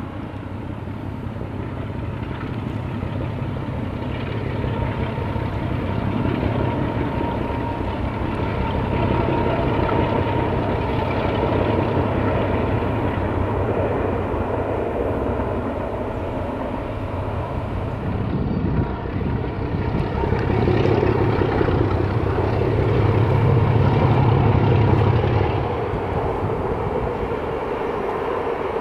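Diesel engine of a Czechoslovak class 749/751 locomotive running with a steady low rumble, growing louder for a few seconds about three quarters of the way through, then easing.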